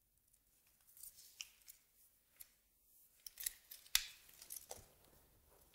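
Scissors cutting kinesiology tape: a series of faint, short, sharp snips, the loudest about four seconds in.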